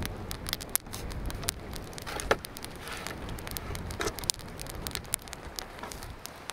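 A tin can being cut open with a small hand can opener: a string of short, sharp metal clicks and scrapes around the rim, a few of them louder, over a low rumble.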